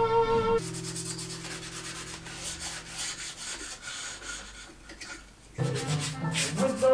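Cloth pad rubbing shellac onto a wooden frame in quick, repeated strokes. Background music plays at the start, drops out after about half a second and comes back near the end.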